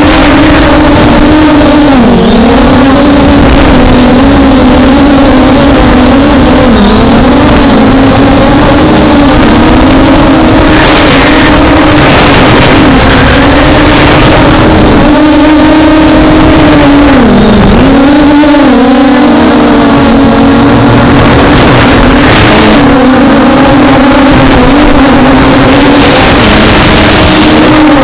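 MJX Bugs B5W quadcopter's brushless motors and propellers whining steadily. The pitch dips briefly and recovers about five times as the motors slow and speed up again. Under it, strong wind rumbles on the microphone.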